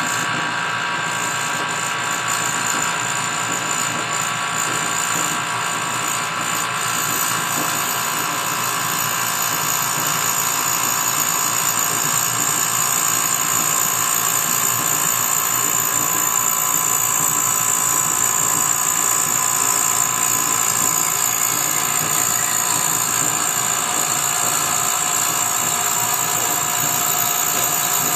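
Desktop CNC router spindle running at high speed while its end mill cuts clear acrylic: a steady high-pitched whine over continuous cutting noise.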